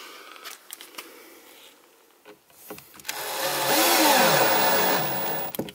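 Cordless drill/driver driving a screw in, after a few light clicks: the motor whirs loudly for about two and a half seconds, its pitch rising and then dropping as the screw pulls tight, and it stops abruptly.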